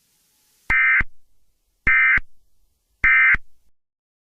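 Three short, identical bursts of Emergency Alert System digital data noise, about a second apart: the SAME end-of-message code that marks the close of an alert.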